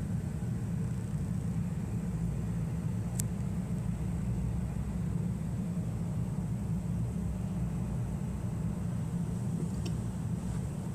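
Steady low background rumble with a single faint click about three seconds in; no firework bangs.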